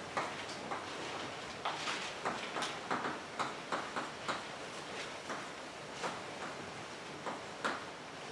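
Chalk writing on a blackboard: a string of quick, irregular taps and short scratches as symbols are written stroke by stroke.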